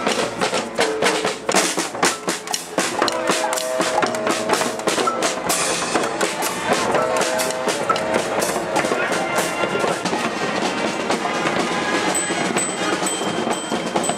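Marching street band playing, led by rapid snare and bass drum beats, with horns sounding held notes a few seconds in and again around the middle.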